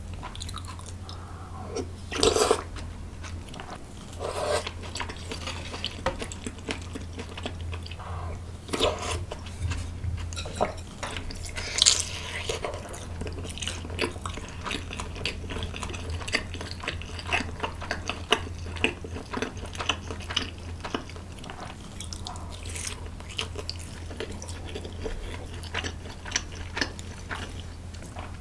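Close-miked eating sounds: repeated bites and chewing, some of them crunchy, with light clicks scattered throughout and a few louder bites. A steady low hum runs underneath.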